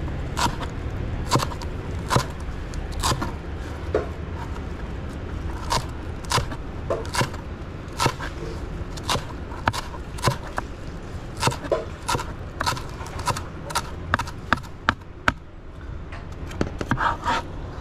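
Chef's knife chopping fresh cilantro on a plastic cutting board: a run of sharp, irregular knocks of the blade on the board, about two a second, over a steady low background rumble.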